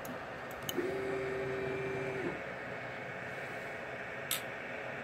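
Longer LK4X 3D printer's stepper motors moving the print head and probe into position for automatic bed levelling: a steady one-pitch hum for about a second and a half, with a few light clicks, over a steady hiss.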